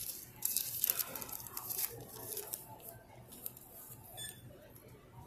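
Paper crinkling and rustling close to the microphone as a thermal-paper checkout receipt is handled, loudest in the first two seconds, then softer.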